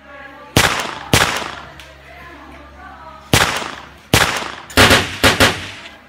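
Gunshot sound effects: sharp cracks, each with a short echoing tail, two a little over half a second apart, then a quicker run of about five shots from three seconds in.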